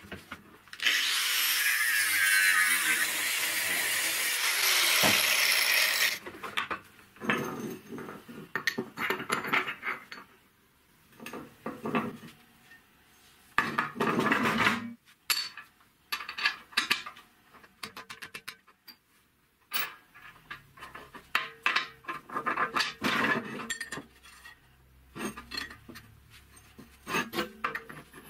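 About five seconds of loud, continuous rasping of metal being worked, then irregular clinks and scrapes as a steel shaft, a ball bearing and metal sleeves are handled and fitted together on a metal workbench.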